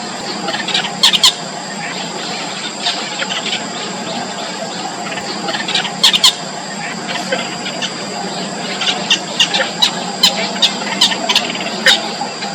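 Yellow bittern nestlings giving sharp, short, high-pitched squealing begging calls: a few about a second in, a pair about six seconds in, then a quick run of about a dozen near the end. Steady high-pitched tones continue in the background.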